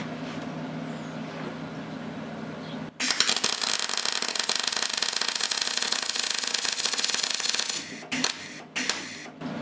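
Deca Decastar 150E MIG welder's arc crackling under gas shielding for about five seconds, starting about three seconds in, then two or three short crackling bursts near the end as the arc is restruck and stopped. The wire feed is a little too high for this power setting, the welder thinks.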